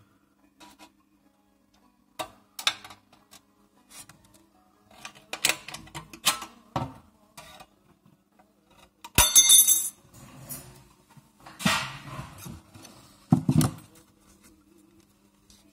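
A thin metal cistern cover plate and its parts being handled on a desk: irregular knocks, taps and clatters. About nine seconds in comes the loudest sound, a short rattle of the sheet metal with a high ringing to it.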